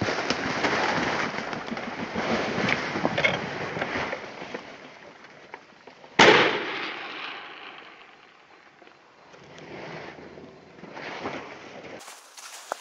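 Footsteps rustling through dry melon vines, then a single double-barrelled shotgun shot about six seconds in, its report trailing off over about a second. The rustling resumes more faintly near the end.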